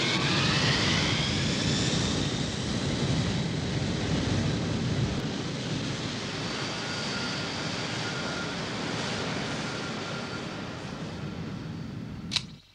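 Jet airliner taking off: engine noise with whines rising in pitch over the first couple of seconds, then a steady rushing sound that slowly fades as the aircraft climbs away. The sound cuts off abruptly near the end.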